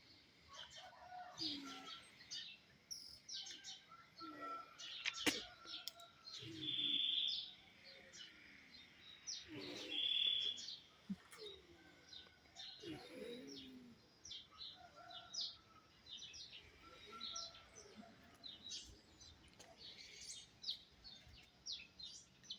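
Several birds singing and calling: a busy run of short high chirps, with two longer, steady, high whistled notes about seven and ten seconds in, and lower swooping calls in between. A single sharp click sounds about five seconds in.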